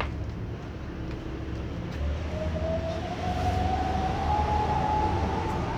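A single slow wail, like a siren, rises gradually in pitch from a little over two seconds in and starts to fall near the end. Under it runs a steady low rumble like traffic.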